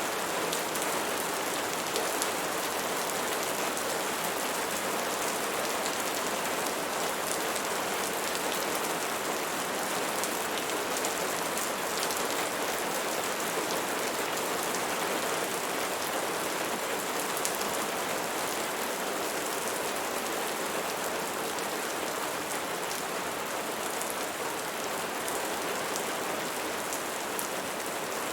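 Steady rain falling, an even hiss with faint ticks of individual drops, unchanging throughout.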